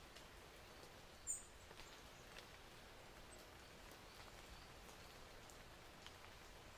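Near silence: a faint steady hiss with scattered faint ticks and one brief, very high chirp about a second in.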